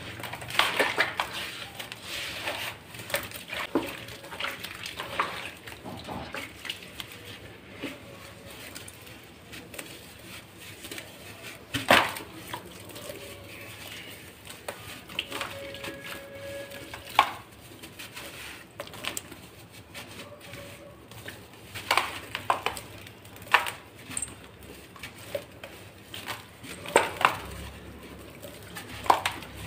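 Hands crushing dry dirt chunks over a plastic basin of muddy water. Gritty crumbling and crunching as the soil breaks up and sifts down, with a few sharp snaps as harder lumps break.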